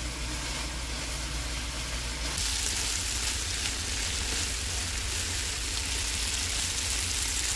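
Shrimp and garlic spaghetti sizzling in a frying pan as it is tossed with chopsticks: a steady sizzle that gets brighter and a little louder about two and a half seconds in, over a low steady hum.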